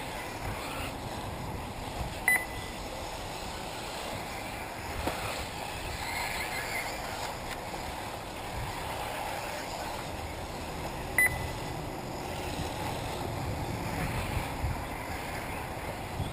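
Electric 1/8-scale RC off-road buggies running on the track amid a steady rushing background, with two short high beeps about nine seconds apart standing out above it.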